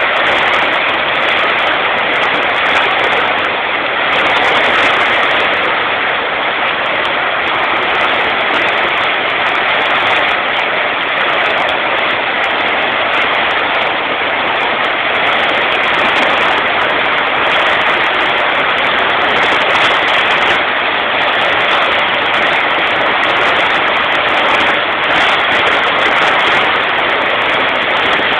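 Heavy rain pouring down: a loud, steady rushing hiss of a downpour.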